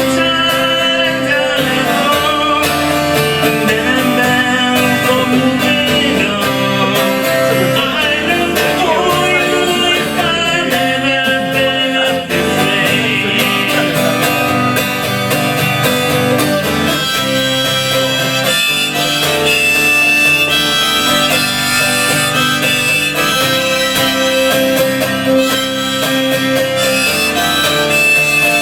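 Harmonica playing a melody in long held notes over acoustic guitar accompaniment.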